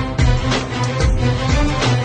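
Instrumental interlude of a Bollywood wedding-style song: held melodic notes over a steady drum beat, with a hit roughly every half second.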